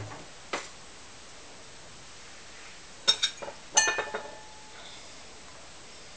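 Glaze-fired ceramic bowls clinking against hard ceramic as a bowl is lifted out of an electric pottery kiln: two soft knocks at the start, then two quick clusters of sharp, ringing clinks about three and four seconds in.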